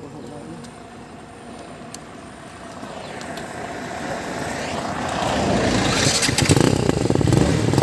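A small passenger van approaching along the road and passing close by: its engine and tyre noise grows steadily louder through the second half and is loudest near the end.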